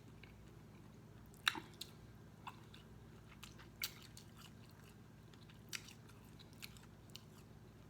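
Close-miked mouth sounds of someone eating seafood-boil food: quiet chewing with about eight scattered short wet clicks and smacks, over a faint steady low hum.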